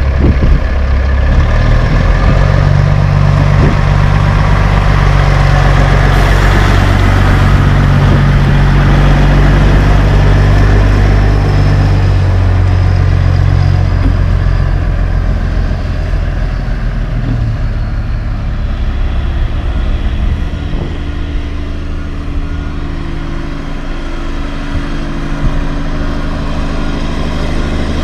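CAT-powered Kenworth T800H tandem dump truck with loud pipes pulling away and driving past, its diesel engine working hard. The engine note changes pitch in steps a couple of times and it is loudest in the first half, then fades as the truck drives off.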